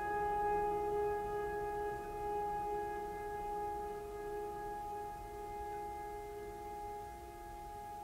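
Ambient background music: a long held tone with overtones, fading slowly.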